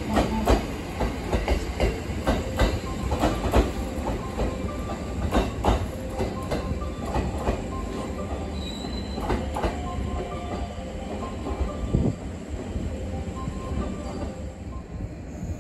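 JR West 227 series electric train running out of the station over rail joints and points: a stream of wheel clicks and knocks with short squeals from the wheels, getting fewer and quieter as it draws away.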